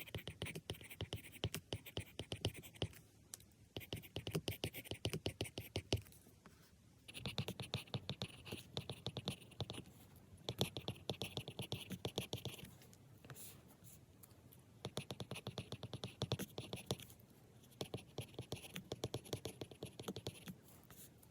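Pen scratching across paper in quick strokes, in bursts of one to three seconds separated by short pauses.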